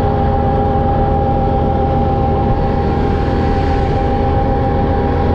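Can-Am quad ATV engine running at a steady cruising speed, heard from the rider's seat. It is a constant drone whose pitch holds level throughout.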